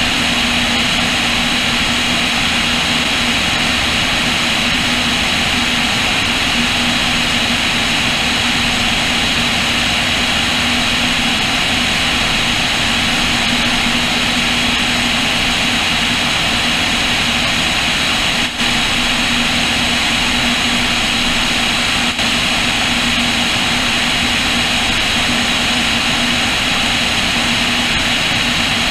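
Cessna O-2A's twin push-pull piston engines and propellers in steady cruise, heard from under the wing as a constant drone with an even hum under a loud rush of air. The sound dips for an instant twice in the second half.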